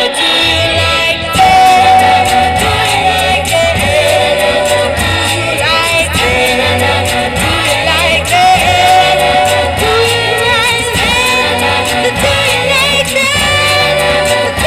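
Busking duo performing a song live: singing over instrumental accompaniment with a steady bass line.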